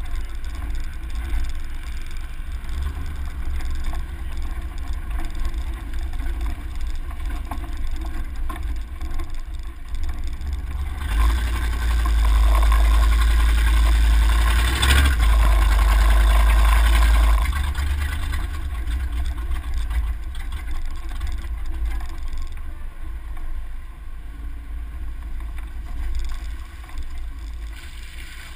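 A 4x4 driving over dirt trails, heard through heavy wind rumble on a side-mounted action camera. The engine and wind noise grow much louder for about six seconds midway, then settle back.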